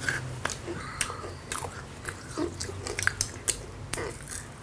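Crisp meringue cookies with edible crickets in them being chewed close to the microphone, in irregular sharp crunches.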